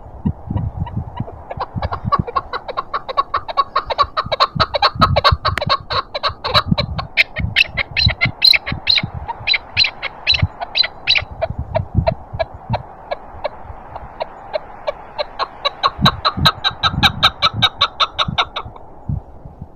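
Chukar partridge calling: a long run of short, quickly repeated clucking notes that build up, ease off in the middle and swell again before stopping near the end, over the low rumble of wind gusts.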